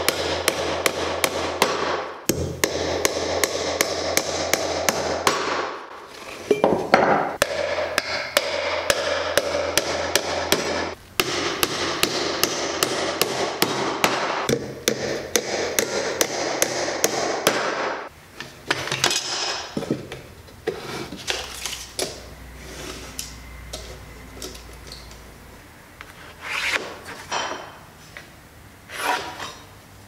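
Claw hammer driving small nails into a wooden birdhouse roof: rapid repeated strikes, about five a second, for roughly eighteen seconds. Then quieter, scattered knocks and handling, with a few louder strikes near the end.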